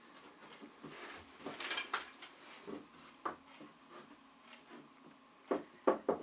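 A plastic rail is being pressed and knocked into place on a games table's panel. There is a brief clattering scrape about one and a half seconds in, and three sharp knocks near the end.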